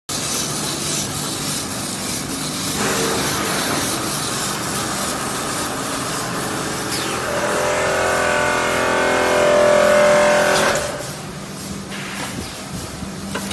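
Fully automatic vacuum packing machine running: steady mechanical noise with a low hum. A louder whine joins about halfway through and cuts off suddenly about three seconds later.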